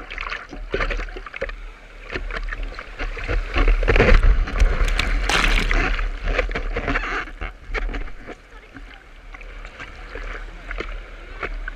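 Broken-wave whitewater rushing and splashing around a surfboard carried by the wave. It is loudest from about four to six seconds in, then eases off.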